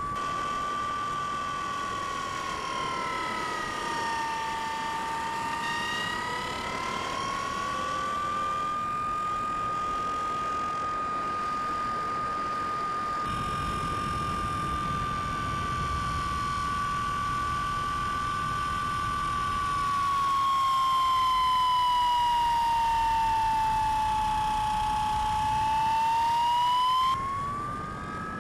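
Electric motor and propeller of a Bix3 (Bixler 3) RC plane whining, heard from the plane itself, over a rush of air. The pitch sinks and rises slowly as the throttle changes, and the sound gets louder about two-thirds of the way through.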